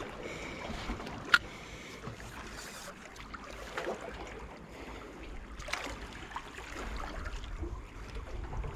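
Quiet sea ambience: gentle water lapping with a low rumble of light wind on the microphone, scattered small ticks, and one sharp click about a second and a half in.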